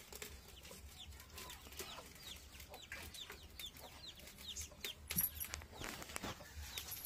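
Faint, repeated short high chirps of birds, falling in pitch, several each second and a little denser near the end.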